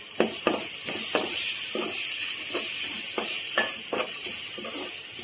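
Capsicum and onion frying in an aluminium kadai with a steady sizzle, while a spatula stirs and scrapes the pan at about two to three strokes a second, working the freshly added spice powders into the vegetables.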